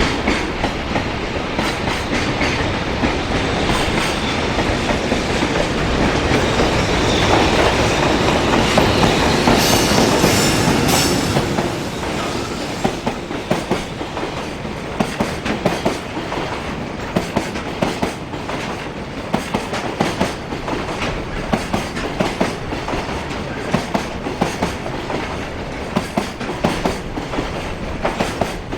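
Container freight train's wagons passing, with a steady rolling rumble that gives way about halfway through to a run of clickety-clack from the wheels over rail joints.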